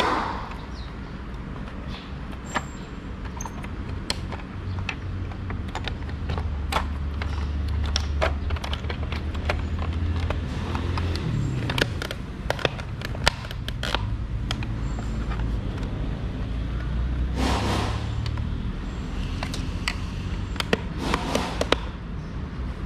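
Plastic parts of a Mazda CX-5 side mirror assembly being handled and fitted together: scattered sharp clicks and light knocks, with two short bursts of rattling and scraping near the end. Under it runs a steady low rumble that swells in the middle.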